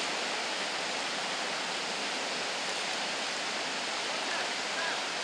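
Whitewater rapids on a small rocky river rushing steadily, an even, unbroken noise of churning water.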